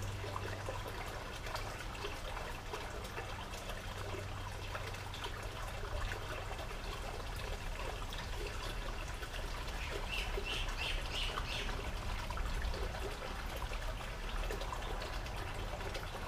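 Outdoor background of a steady low hum and faint hiss, with a bird chirping a quick run of about five short notes about ten seconds in.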